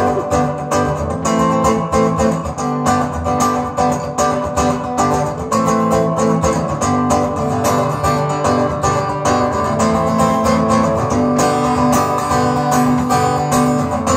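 Acoustic-electric guitar strummed in a steady rhythm through a PA, chords only, with no singing.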